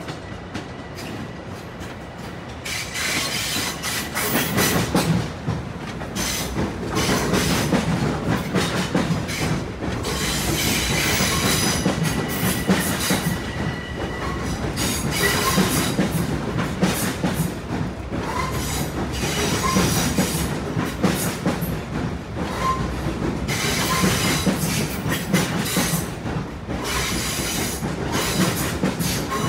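Long Island Rail Road train running past at close range, its wheels clicking over the rails with brief squeals of wheel on rail. The sound swells about three seconds in and stays loud.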